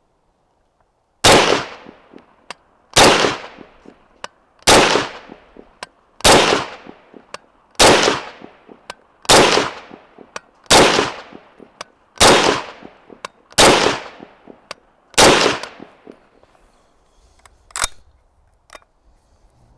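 M1 carbine firing ten rounds of .30 Carbine handloads (110-grain bullets over 12 grains of Vihtavuori N110) in semi-automatic, one shot about every one and a half seconds, each shot trailing off in an echo. A smaller sharp click follows about two seconds after the last shot.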